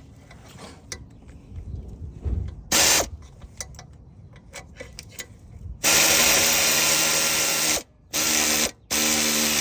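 Aircat 811 air ratchet driving oil pan bolts, with a steady whine under a loud air hiss. There is one short burst about three seconds in, then a long run of about two seconds and two shorter runs near the end, with light clicks in between.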